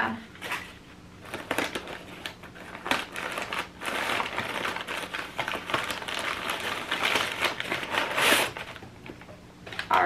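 Crumpled newspaper packing rustling and crinkling as hands dig through it in a cardboard box: a steady run of crackles with a louder rustle near the end.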